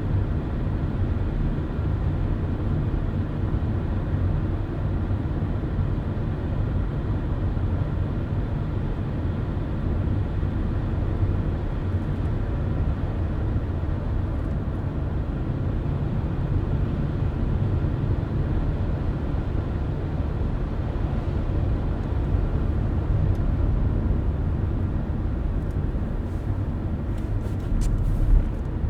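A car driving at a steady cruise: an even, low rumble of tyre and engine noise. A few faint ticks come near the end, with a brief bump just before it closes.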